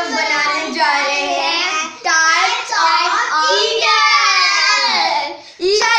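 A child singing in a high voice, with long, sliding held notes and a brief break about five seconds in.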